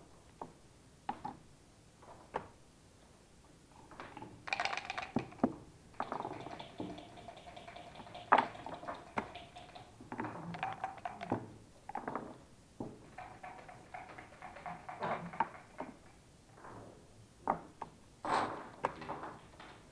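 Backgammon being played: dice rattled in a cup and rolled out onto the board, and checkers clicked down, heard as spells of rattling clatter between separate sharp clicks.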